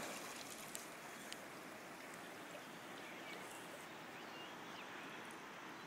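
Steady rush and slosh of river water as two Old English Sheepdogs swim through it, with a couple of small splashes in the first second and a half.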